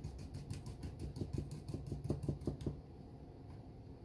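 Small hard clicks and rattles of a metal mounting bracket being handled and fitted against the chassis of a RetroSound Motor4 car radio, a quick irregular run that stops about two and a half seconds in.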